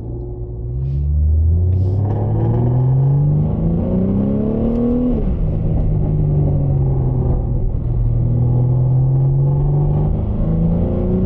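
BMW G80 M3's twin-turbo inline-six heard from inside the cabin, pulling up through the revs for about four seconds. Its pitch drops sharply at an upshift about five seconds in, and it carries on at a steady, lower rev.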